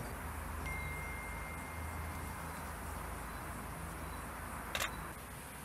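Outdoor field ambience: a steady low rumble, a thin steady high tone lasting about two seconds from about a second in, and one sharp click near the end.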